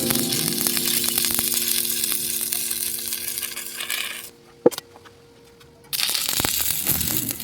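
Cooking sizzle and crackle with background music, cutting to near quiet about four seconds in, where a single sharp metallic clink rings briefly; the sizzling comes back near the end.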